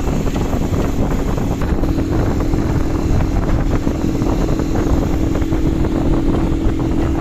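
Vehicle engine running steadily, its hum rising slightly about two seconds in, under heavy wind noise buffeting the microphone.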